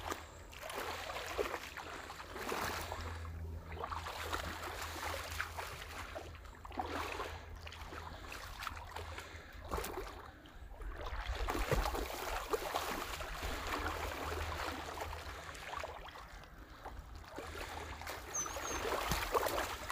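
Splashing and sloshing in shallow water as a hooked bass thrashes at the surface, with wind rumbling on the microphone.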